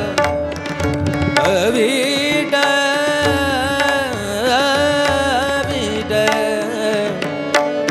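Marathi devotional abhang singing: a male voice holding and bending long, ornamented notes over drum and instrumental accompaniment.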